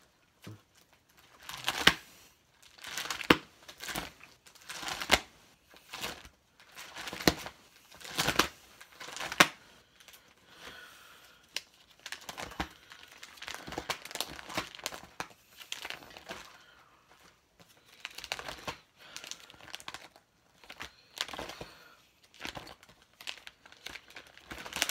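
Crinkling and rustling of plastic and foil packaging as Pokémon trading cards are handled, in irregular sharp bursts, the loudest in the first ten seconds or so.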